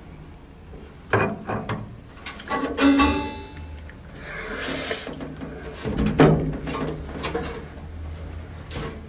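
Steel bench-seat frame being handled against its seat track and spring: a run of metal knocks and rattles starting about a second in, a brief scrape in the middle, and more knocks around six seconds.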